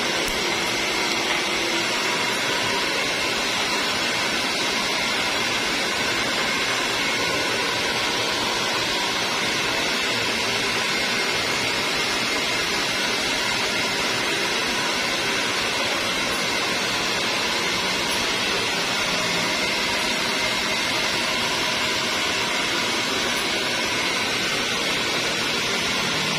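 A steady, even rushing noise with a faint hum in it, unchanging throughout, like a fan or blower running close by.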